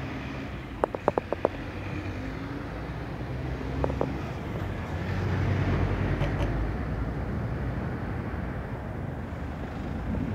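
Outdoor city street background of road traffic, with a passing vehicle swelling and fading about halfway through. A quick run of short clicks comes about a second in.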